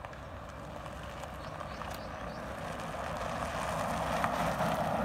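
A golf cart running along a gravel road toward the listener, growing steadily louder as it comes nearer, its tyres crunching on the gravel.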